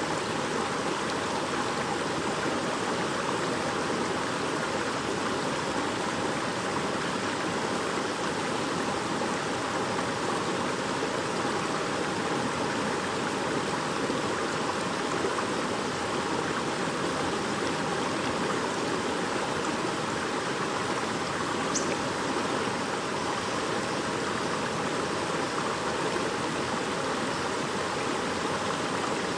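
Shallow stream babbling steadily.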